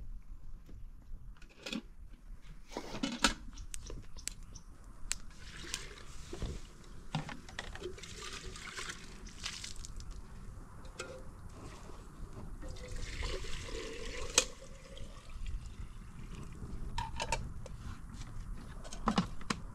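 Water being poured or splashed in short spells of a second or two, with scattered knocks and clinks in between.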